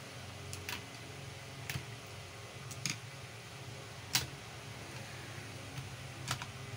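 A screwdriver tip clicking and scraping against the inside of a Dongcheng marble cutter's metal motor housing, where the field coil sits: about five sharp, irregular clicks.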